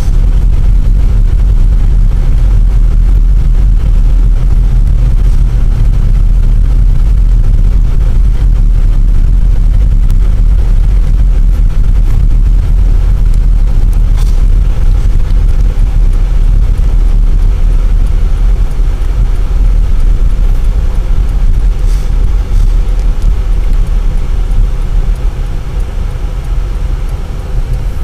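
Cabin noise of an all-wheel-drive vehicle driving on a snow-covered road: a steady, loud low rumble of tyres and drivetrain that eases a little near the end.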